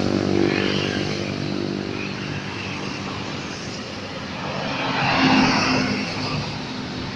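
Horn of a Cahaya Gemilang bus sounding in held, multi-tone notes over the bus's running engine, fading back after the start and swelling to a second loud peak about five seconds in.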